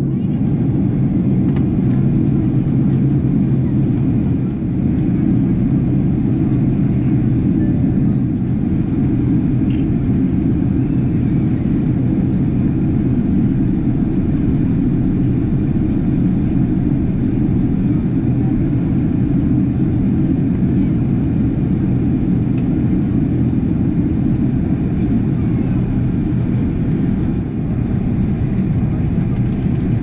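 Jet airliner cabin noise at a window seat in flight: a steady low rush of engine and airflow with a faint low hum under it.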